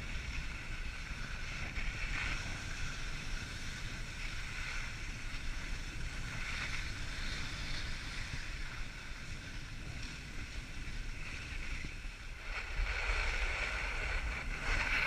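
Skis hissing and scraping over packed snow on a downhill run, swelling in surges and louder near the end, with wind rumbling on the microphone.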